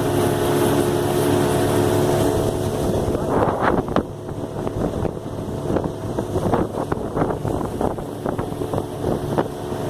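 A 15 hp outboard motor running on a small boat with a steady note. About four seconds in, the engine drops quieter and irregular short knocks follow.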